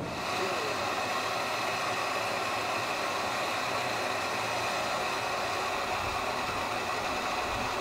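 Protos plant-oil cooking stove burning coconut oil, its pressurized burner giving a steady, even hiss.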